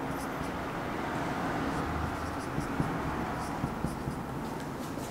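Marker pen writing on a whiteboard: a run of short, irregular strokes of the felt tip against the board as letters are written.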